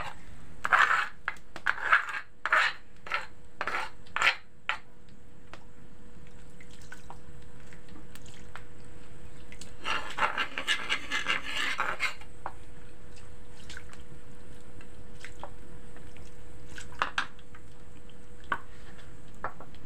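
A metal spoon scraping and knocking ground spice paste out of a small blackened pan into a wok. There is a quick run of sharp knocks in the first few seconds, a longer scrape about ten seconds in, and scattered single taps after that.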